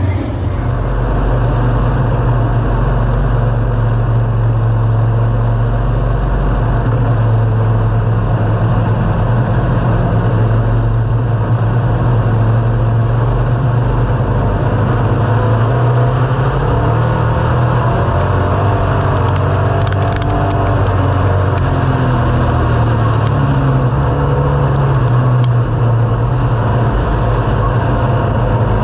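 Pure stock dirt-track race car's engine heard from inside the car, running steadily at moderate revs, its pitch rising and falling a few times in the middle.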